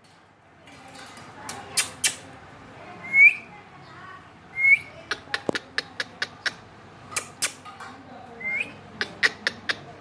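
Indian ringneck parakeet giving three short rising whistles, with a quick series of sharp clicks in the second half.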